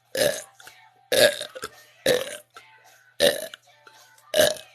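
A person burping on command: five short, forced burps in a row, about a second apart.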